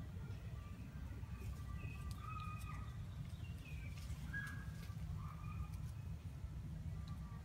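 A few short, high chirping calls from animals in the surrounding trees, over a low steady rumble.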